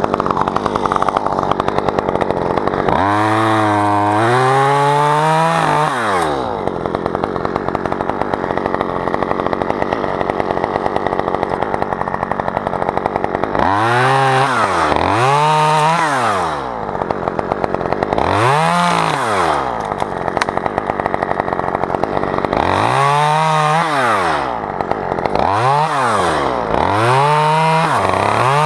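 Chainsaw engine running steadily and repeatedly revving up and dropping back. It rises in long spells about three seconds in, around the middle, and again near the end, with several quick rises and falls in a row.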